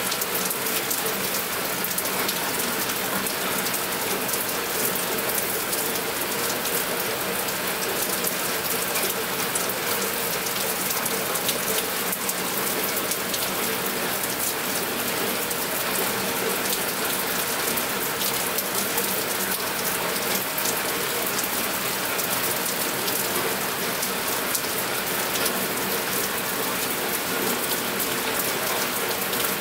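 Steady rain: a dense, even patter of many drops striking nearby surfaces.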